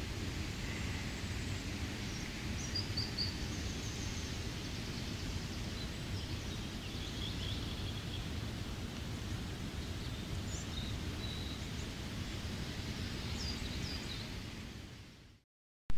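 Steady rain with a low rumble beneath it, and forest birds chirping briefly a handful of times. The sound fades out to silence near the end.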